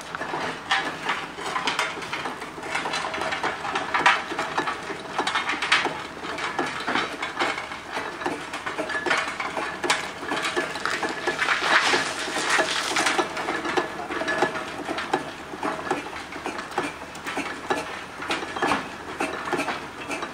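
Steam traction engine running at low speed: a busy, irregular clanking and clinking of its gearing and motion, with a louder rush of noise for a couple of seconds around the middle.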